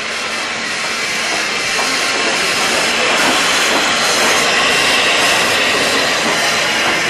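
Steady, loud hiss of steam escaping from SECR P class 0-6-0 tank locomotive No. 323, standing with no exhaust beat. The hiss grows a little over the first few seconds, then holds even.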